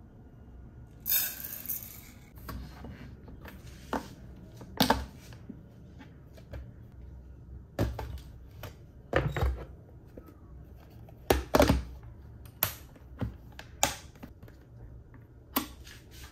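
Dry brown rice scooped and poured, with a short hiss about a second in, followed by a scattered series of sharp clicks and knocks as the portable rice cooker's pot, lid and cook switch are handled.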